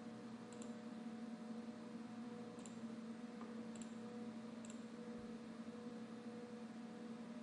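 Four faint computer mouse clicks, spaced a second or so apart, over a steady low electrical hum.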